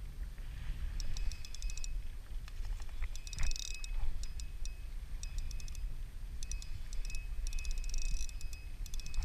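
Wind buffeting the microphone as a steady low rumble, with several short bursts of fast, fine mechanical clicking.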